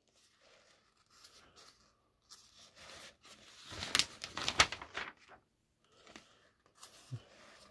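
Paper rustling as a comic's pages are turned, a short flurry of rustles and flicks about four seconds in after quiet handling.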